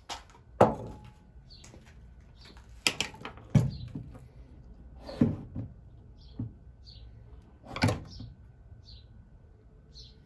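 Several sharp knocks and clunks of objects being handled and set down, about seven in ten seconds, with faint short high chirps repeating in the background.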